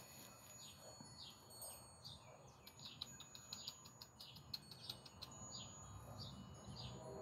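A small bird chirping over and over, faint: short falling chirps, about two a second, with a few light clicks in the middle.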